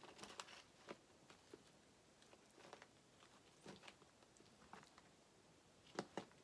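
Faint clicks and scrapes of a metal fork against a metal baking sheet as it digs through and gathers sauce-covered fries, with two sharper clicks near the end.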